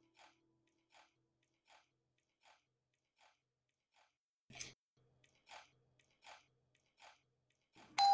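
Crunchy biscuit chewing in a steady rhythm, about one chew every three-quarters of a second, with a louder bite about four and a half seconds in. A loud bright chime strikes right at the end.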